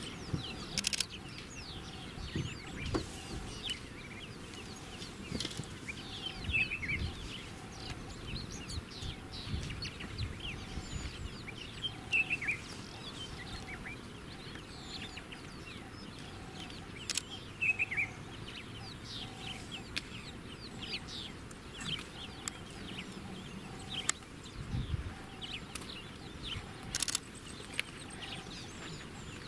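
Wild birds calling in the bush at dawn: many short, falling chirps and clucking calls overlap throughout. Underneath runs a faint note repeated evenly, a little more than once a second.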